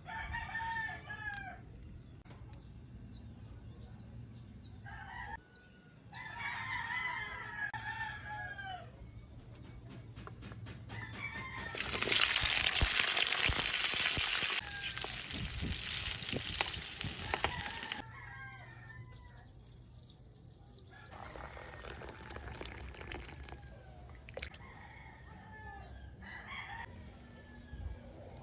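Roosters crowing several times, with small birds chirping high in between. Midway a loud rushing noise covers everything for about six seconds, then the crowing returns more faintly.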